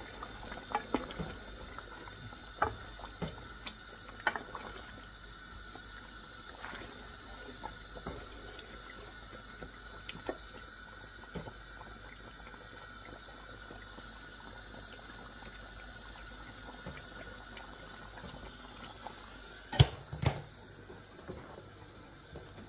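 Pot of curry chicken back simmering in its thick sauce, bubbling with many small pops. Two louder sharp clicks sound about twenty seconds in.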